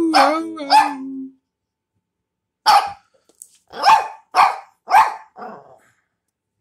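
Small chihuahua-type dog barking at a toy being dangled in front of it: a couple of sharp barks at the start, then after a short pause a quick run of about five more, the last one fainter.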